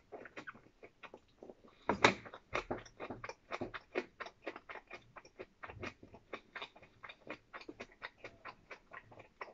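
A person eating with chopsticks: a quick, irregular run of small clicks and chewing sounds, loudest about two seconds in.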